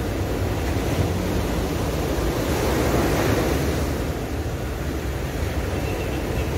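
Sea waves washing onto the shore, a steady rush of surf that swells briefly as a wave breaks about three seconds in.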